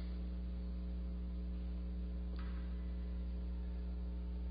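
Steady electrical mains hum in the sound system during a pause in the speech, with one brief faint noise about two and a half seconds in.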